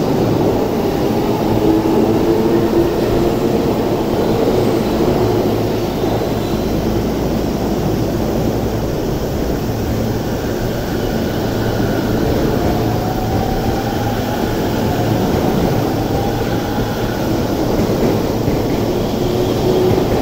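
JR E233- and E231-series electric commuter trains moving along the platform: a steady rumble of wheels on rails, with the whine of the electric traction motors gliding upward in pitch partway through.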